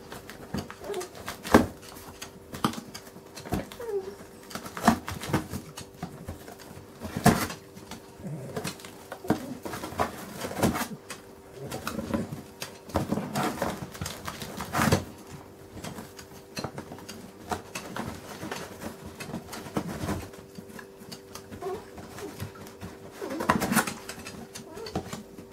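Dachshund biting and tearing at a cardboard box: irregular sharp rips and crunches of cardboard, some louder than others, with pauses between.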